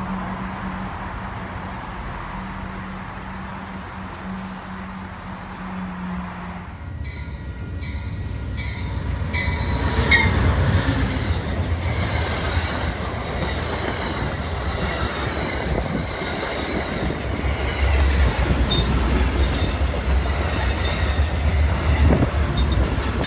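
Passenger trains rolling past close by. First an MBTA commuter rail train moving along a station platform with a steady hum. After a cut, a louder Amtrak train of stainless-steel cars passes at speed, its wheels rumbling and clattering over the rails.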